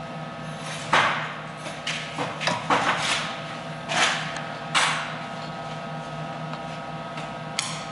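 Steady electrical hum from a running Hughes Model 250B welding power supply. Over it come a series of scraping, rustling handling noises as a small wire and tab are set between the weld head's brass electrodes, then a single sharp click near the end.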